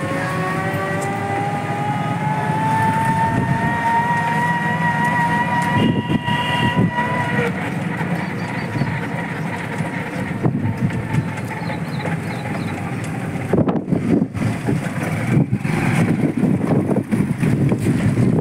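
Auto-rickshaw ride. For the first several seconds the motor's whine rises slowly in pitch as the vehicle picks up speed. Then road rumble and rattling of the rickshaw body take over.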